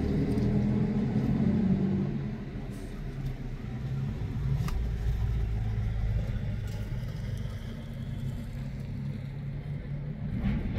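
A motor vehicle's engine running with a low, steady rumble, louder for the first couple of seconds and then settling.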